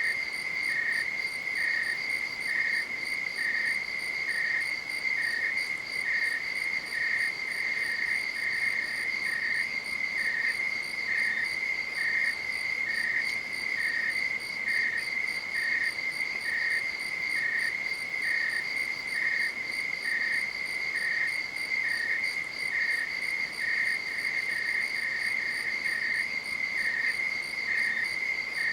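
Night insects singing, cricket-like: one steady, unbroken high trill and, just below it in pitch, a second insect chirping evenly about one and a half times a second.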